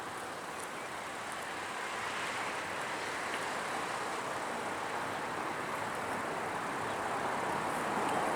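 Road traffic noise: a steady hiss of vehicles on the road that grows gradually louder.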